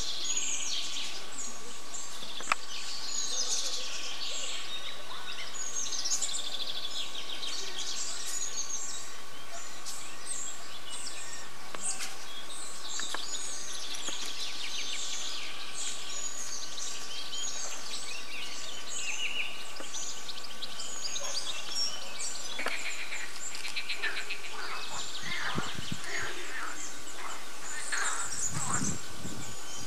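Many songbirds singing and chirping at once in a continuous chorus of quick high calls, over a faint steady hum.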